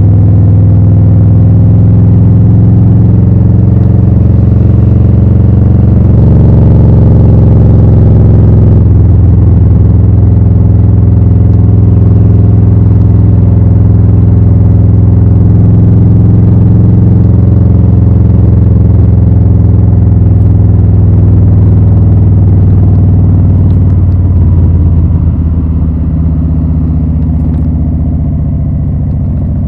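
2020 Harley-Davidson Low Rider S's Milwaukee-Eight 114 V-twin running through Rinehart slip-on mufflers, a loud steady exhaust note. Its pitch lifts slightly about six seconds in, settles near nine seconds, and the engine eases off and quietens around twenty-five seconds in.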